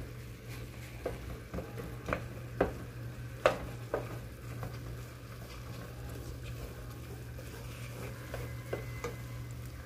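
Wooden spoon stirring and mashing boiled potatoes in a metal pot, with sharp knocks of the spoon against the pot, most of them in the first four seconds. Under it, a faint sizzle of margarine and oil heating with the potatoes, over a steady low hum.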